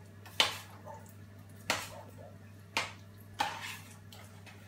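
A spoon clinking sharply against a saucepan four times as soup is stirred on the hob, over a steady low hum.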